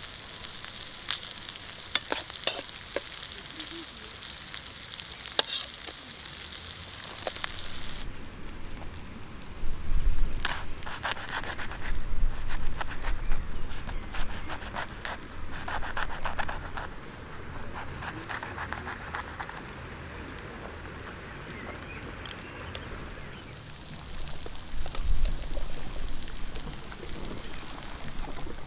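A hamburger patty and vegetables sizzling in a frying pan on a Trangia camping stove, with the clicks and scrapes of a knife working in the pan. After about eight seconds the sizzling stops and a knife saws through a crusty bread roll in short rasping strokes, with a few low thumps. Near the end the sizzling returns.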